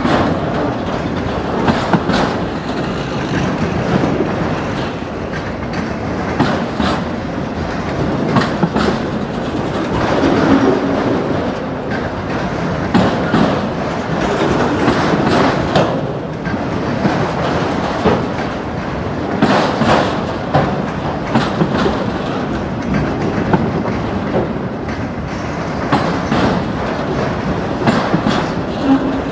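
Autorack freight cars rolling past on a spur track: a steady rumble of steel wheels on rail, with irregular sharp knocks throughout.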